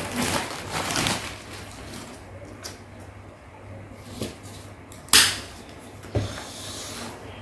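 A thin plastic bag rustling and crinkling as it is handled and rice is pulled out of it, with a sharp crackle of plastic about five seconds in and a shorter one a second later. A low steady hum runs underneath.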